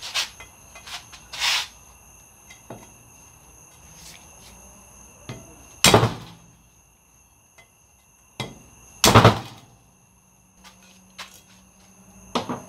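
Metal-on-metal hammer blows on a socket set over a valve spring retainer of a Chrysler Pentastar 3.6L aluminium cylinder head, knocking the spring loose to remove a valve. There are two heavy strikes, about six and nine seconds in, each with a short metallic ring, and lighter knocks and taps between them.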